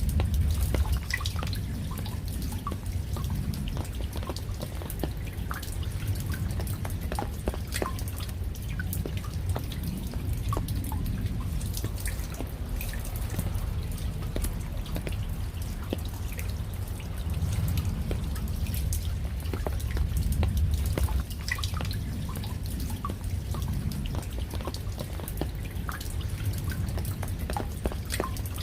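Raindrops falling and dripping: scattered, irregular drop impacts over a steady low rumble of rain.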